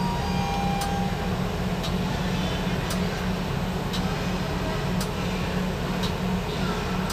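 Steady machinery hum in a WDP4D diesel locomotive's cab while the engine start switch is held at Prime; the diesel engine itself is not yet running. A faint tick repeats about once a second.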